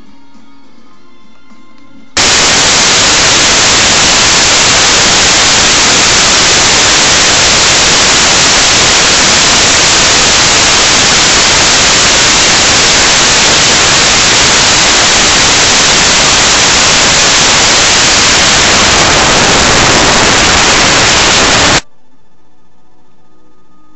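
Loud, even hiss of static like white noise, starting abruptly about two seconds in and cutting off just as abruptly about two seconds before the end. Faint background music with steady tones is heard on either side of it.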